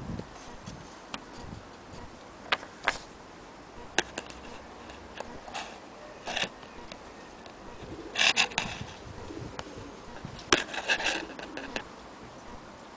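Clock parts being handled: scattered small clicks at irregular times, and two short clattering runs of rapid clicks, the first a little past the middle and the second near the end.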